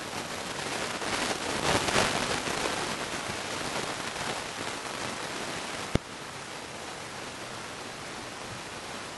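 Steady rushing noise of a thunderstorm, swelling about a second in and then easing off. A single sharp click comes about six seconds in, after which the noise is a little lower.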